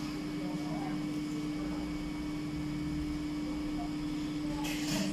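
Industrial sewing machine's motor humming steadily, with one constant tone over a low hum.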